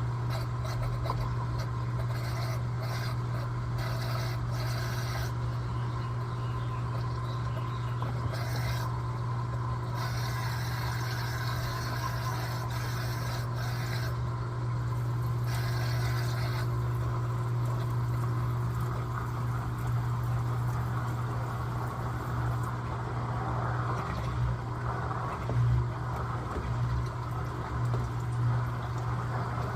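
Electrolux LTA15 top-loading washing machine agitating a load of bed linen: a steady motor hum under water sloshing and the fabric scraping and rubbing in the tub.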